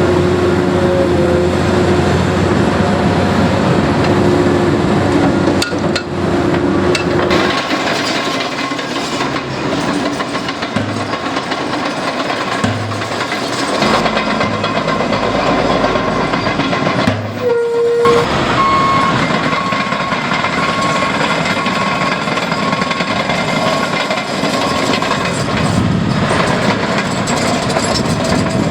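Heavy diesel construction machinery working: the engines of the excavator, dozer and roller running and labouring. In the second half a reversing alarm beeps in a steady high series.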